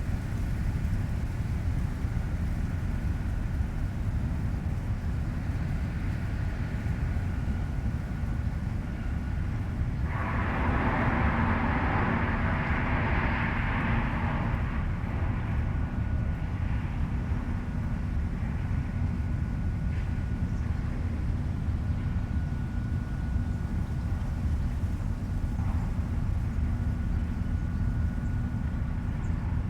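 A heavy machine's engine running steadily with a low rumble. About a third of the way in, a loud hiss cuts in for about five seconds and stops.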